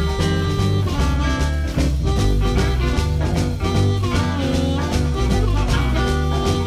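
Electric blues band playing an instrumental passage: a stepping bass line and drums under lead lines with bending notes.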